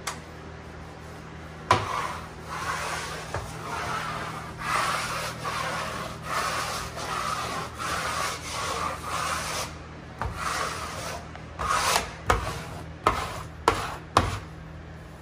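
Plastic wallpaper smoother scraping over cork wallcovering in repeated strokes, about one and a half a second, pressing out air and excess glue. It ends with a few sharp taps.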